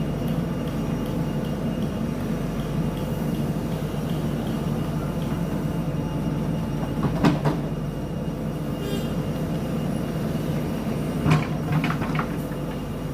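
Diesel engine of a JCB backhoe loader running steadily under working load while digging. Sharp knocks sound about seven seconds in and again around eleven to twelve seconds in.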